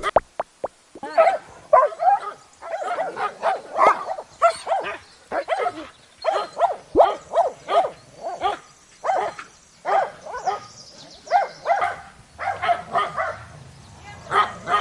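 Pomeranian barking over and over in short, high yaps, about two or three a second, with a brief pause just after the start.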